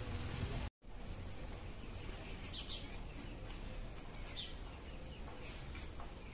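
Garden ambience: a few short bird chirps over a steady low background rumble, broken by a brief gap under a second in.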